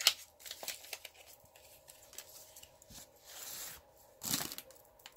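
Cardboard eyeshadow palette carton being opened by hand: scattered clicks and taps of the flaps, a brief papery rasp a little after three seconds and a sharper scrape just after four seconds.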